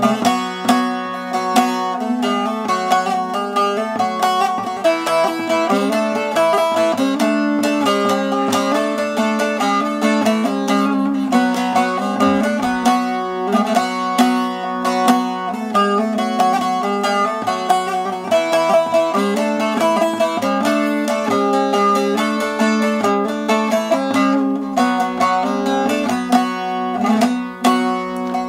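Bağlama (long-necked Turkish saz) played solo: an instrumental passage of rapid plucked melody notes over a steady ringing drone.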